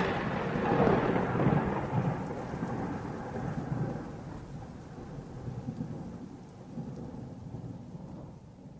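Thunder rolling on after a clap, swelling twice in the first couple of seconds, then a long low rumble that slowly dies away.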